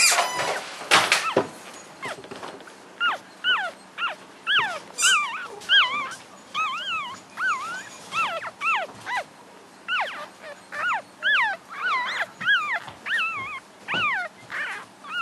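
Week-old American Cocker Spaniel puppies squeaking and whimpering: a steady run of short, high cries, about two a second, each rising and then falling in pitch. A few rustles and knocks come in the first second or so.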